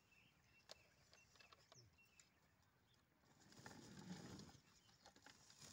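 Near silence with a few faint ticks, then about four seconds in a soft, low rumble lasting about a second as Thai apple (ber) fruit is tipped from a plastic bucket into a woven sack.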